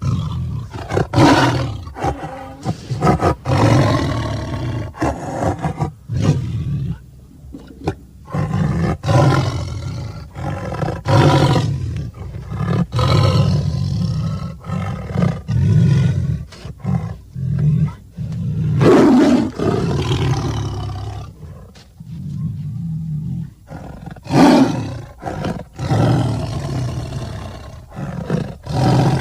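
Tiger growling and roaring, a run of rough calls one after another with only short gaps between them.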